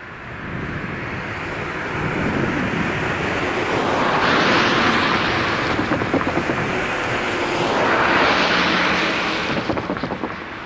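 Two cars passing close by one after the other, their road and tyre noise swelling and fading twice, with short knocks as the wheels run over the rails of the level crossing.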